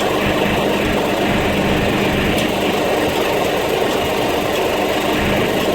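A motor vehicle's engine running steadily with a constant low hum.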